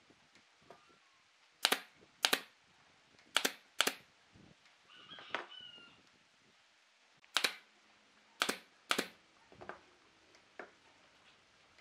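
Sharp clicks or knocks, seven in all, mostly in pairs about half a second apart, with a short chirp-like squeak about five seconds in and a few fainter taps near the end.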